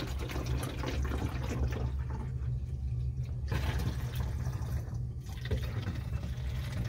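Water pouring from a plastic water bottle through a funnel into a plastic bottle, the flow breaking briefly twice, about halfway and again near five seconds in, over a steady low hum.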